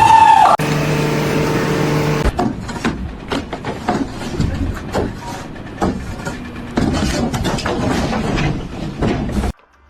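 A machine's engine running with a steady hum, followed by irregular knocks and clattering; the sound cuts off abruptly near the end.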